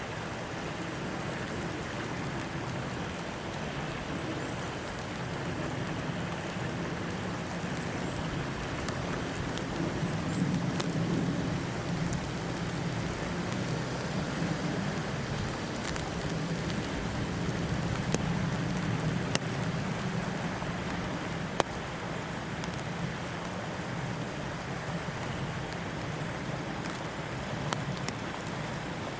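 Steady outdoor hiss of falling precipitation, with a low hum underneath and a few faint ticks, one sharper click about three-quarters of the way through.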